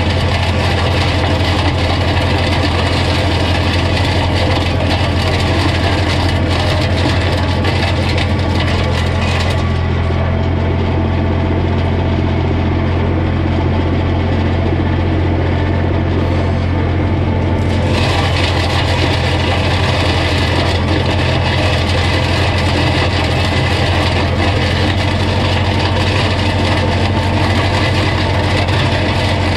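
Holder A45 vineyard tractor's engine running steadily while its mulcher chops vine prunings, a steady low hum under a dense hiss. About ten seconds in, the high hiss drops away for some eight seconds, then returns.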